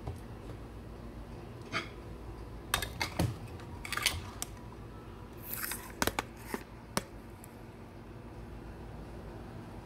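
Kitchen handling sounds: a scattering of sharp clicks and knocks between about two and seven seconds in, with a brief rustle midway, over a low steady hum.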